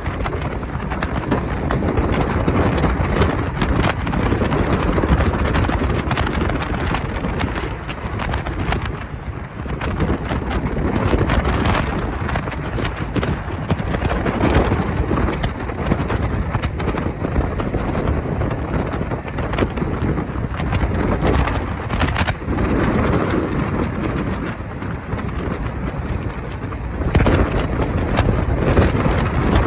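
Wind buffeting the microphone on a moving boat: a loud, uneven rush that swells and dips throughout.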